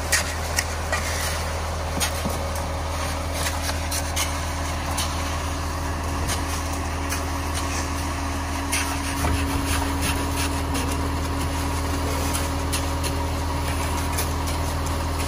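Concrete mixer truck running steadily during the pour, a constant low engine hum, with scattered clicks and scrapes over it.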